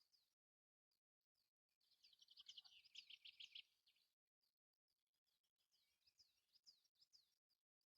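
Faint birdsong: quick down-slurred chirps, rising into a rapid dense trill from about two seconds in until about three and a half seconds.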